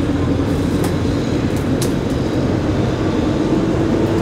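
A motor-vehicle or boat engine running steadily with a low hum whose pitch creeps slowly upward. Two faint sharp clicks sound in the first two seconds.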